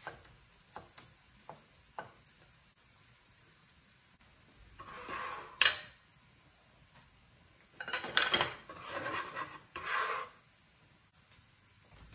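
Knife cutting soaked rice noodles on a plastic cutting board in a few light knocks, then the noodles being scraped up and moved into a glass bowl, with scraping and rustling and one sharp knock about halfway through.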